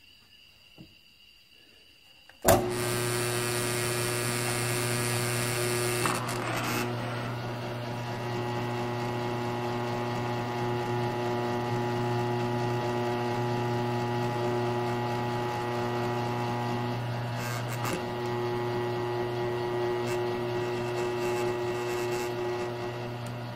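A Grizzly G1007 mill-drill is switched on about two and a half seconds in and runs with a steady hum while a step drill bit bores a hole in a steel muffler tube.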